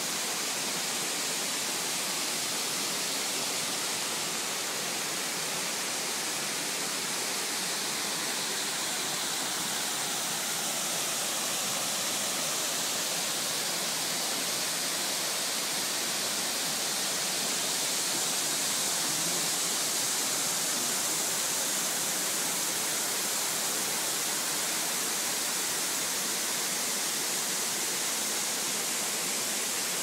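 Nabegataki waterfall, a wide curtain of water pouring into its plunge pool, giving a steady rushing noise.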